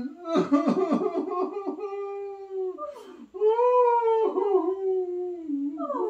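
A puppeteer's voice fake-crying for the bear puppet. It starts with short sobbing catches, then gives long, drawn-out wailing whimpers that rise and fall in pitch.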